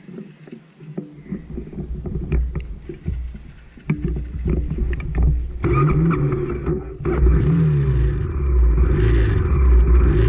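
Honda CRF250F's single-cylinder four-stroke engine running and being revved on the trail. It gets louder at about four seconds and again near six seconds, with the pitch rising and falling under throttle, and there is some clatter.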